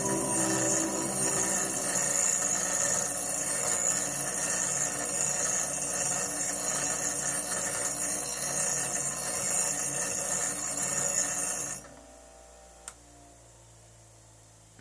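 A steel rod ground against the wheel of an 8-inch variable-speed bench grinder with a brushless motor, a steady hissing grind. It cuts off suddenly about twelve seconds in, leaving a faint hum and a single click.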